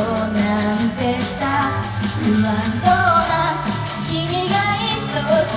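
Female idol group singing an upbeat J-pop song over a recorded band backing track.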